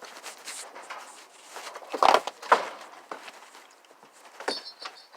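Scattered knocks and scuffs, with two loud thuds about two seconds in, half a second apart.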